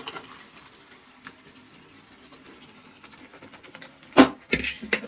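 Boiled kidney beans in their cooking liquid being poured from a pressure cooker into a pan of cooked masala, a soft wet rush that fades to a low simmer. About four seconds in come a sharp knock against the pan, the loudest sound here, then two or three lighter knocks.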